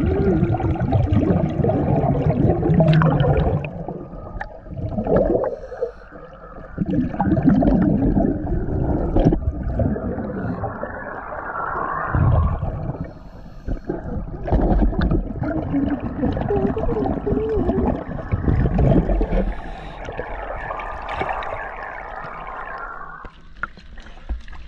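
Underwater audio of a scuba diver's breathing through a regulator: bubbly, gurgling exhalations in loud surges every few seconds, with quieter gaps between.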